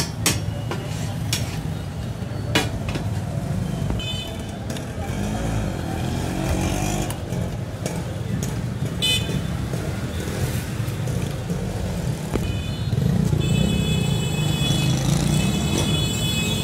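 A metal spatula taps and scrapes sharply on a flat iron tawa griddle several times in the first few seconds, over a steady low rumble of street traffic. About 13 seconds in, a high steady tone starts and carries on.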